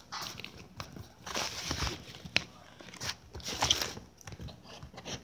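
Irregular rustling, scraping and sharp clicks of a package being cut and worked open by hand.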